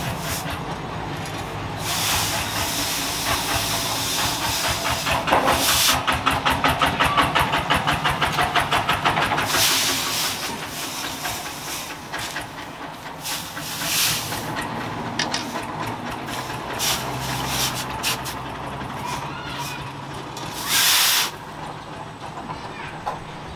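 Hot forged steel sword blade, made from a chainsaw blade, being quenched in a water trough: the water hisses and sputters into steam, with a fast even sputter for a few seconds and short louder bursts of hiss now and then.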